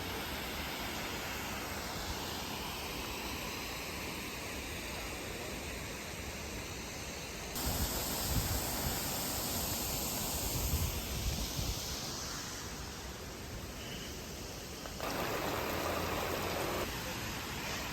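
Steady rushing of the Reedy River falls, an even wash of water noise. The sound changes abruptly twice, with uneven low rumbling in the middle.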